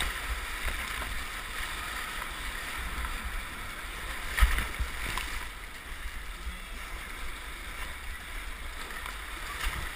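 Whitewater rapids rushing around a racing kayak as it is paddled downstream, with paddle strokes splashing and a low rumble on the microphone. A loud splash about four and a half seconds in.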